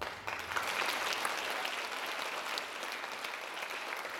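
Audience applauding, breaking out suddenly and continuing steadily.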